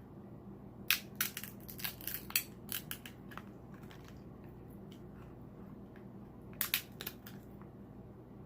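Close-up eating sounds of king crab legs: sharp crackles and wet smacks in quick clusters, a burst about a second in lasting a couple of seconds and another near seven seconds.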